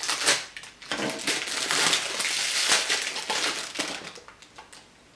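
Clear plastic wrapping crinkling and crackling as it is pulled off a small cardboard pen box: a sharp crackle at the start, then a few seconds of dense crinkling that fades out near the end.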